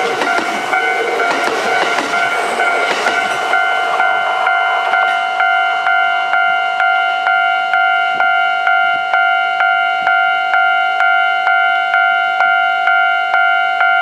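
Level-crossing warning bell ringing in an even, repeating ding about two and a half times a second, over the noise of a Kintetsu 2610 series express train running past close by. The train noise fades after about four seconds, leaving the bell ringing on its own.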